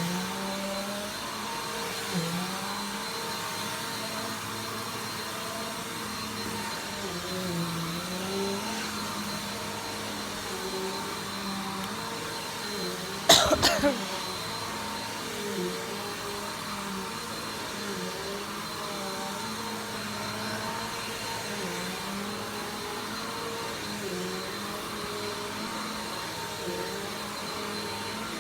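Vacuum cleaner running steadily, its motor pitch dipping briefly now and then. About halfway through comes a short, sharp, loud burst.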